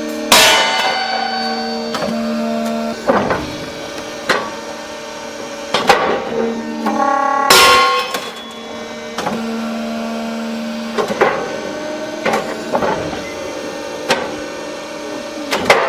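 Hydraulic rail-breaking press snapping steel rail. There are two loud cracks about seven seconds apart, each followed by metallic ringing, with smaller clanks in between. Under it all runs a steady machine hum.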